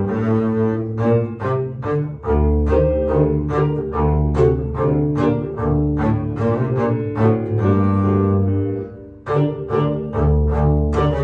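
Upright double bass played with a bow, a solo line of separate notes moving between the low and middle register. The playing dips briefly about nine seconds in, then picks up again.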